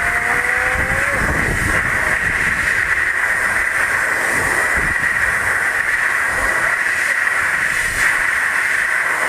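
Compressed air hissing steadily from a scuba tank as it blasts an orange to set it spinning. A faint rising whistle sounds in the first second.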